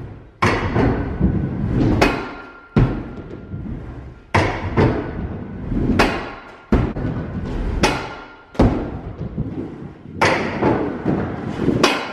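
Stunt scooter riding back and forth on a plywood mini ramp. A sharp knock every second or two as the wheels hit the wood, each followed by a rolling rumble through the hollow ramp that fades away.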